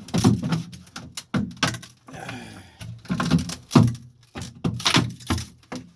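About ten irregular heavy knocks and thuds against the old fuel tank glassed into a fiberglass sailboat hull, as it is being broken loose, in a cramped, boxy space.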